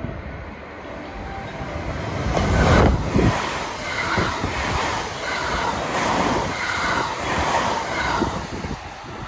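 JR West 225 series electric train passing through a station at high speed. The noise builds to a loud rush of air and wheels as the front car arrives about three seconds in, then the cars and their bogies go by in a regular repeating rhythm until the train has passed.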